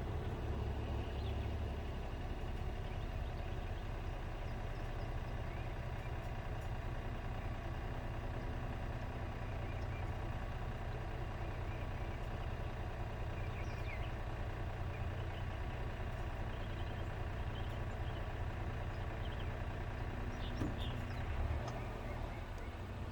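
2017 Honda Accord Touring idling in drive: a steady low hum with faint steady tones, the noise the owner puts down to the transmission. A couple of brief knocks come near the end.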